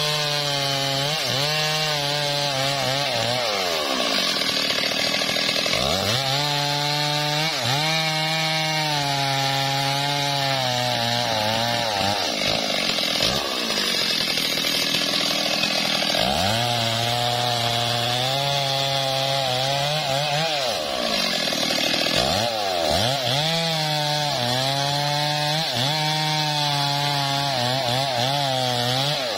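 Stihl MS 382 two-stroke chainsaw cutting through mahogany logs: the engine is revved up in about four spells, its pitch wavering and sagging as the chain bites into the wood, easing back between cuts.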